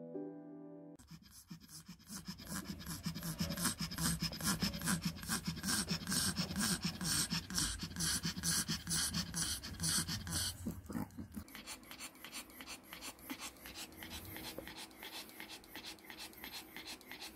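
Maltese dog panting fast and heavily, with a hoarse, rasping sound mixed into each breath, while recovering from surgery for pyometra. The panting is loud at first and quieter after about ten seconds. A piano tune ends about a second in.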